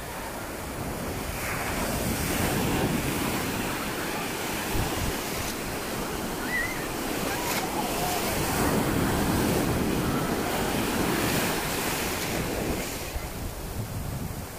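Sea surf: waves breaking and foamy water washing up the sand, with wind buffeting the microphone. The wash swells louder about two seconds in and again from about eight to twelve seconds, easing off near the end.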